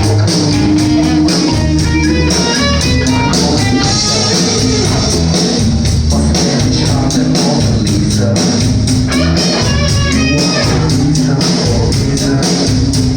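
Rock band music: guitar over a moving bass line and a steady drum beat.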